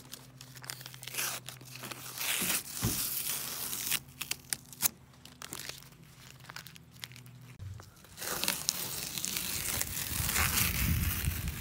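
Green painter's masking tape being peeled off the edge of a freshly sprayed bed-liner coating, tearing and crackling in irregular pulls. A faint low hum underneath stops about two-thirds of the way through.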